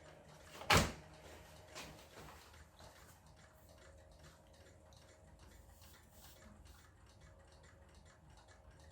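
A sharp knock a little under a second in and a softer one about a second later, then a faint run of small regular ticks over a low steady hum.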